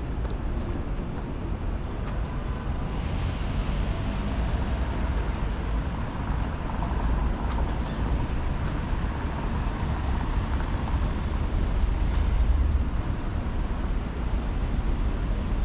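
Road traffic on a city street: a steady low rumble of passing cars and buses, with a broader hiss joining about three seconds in.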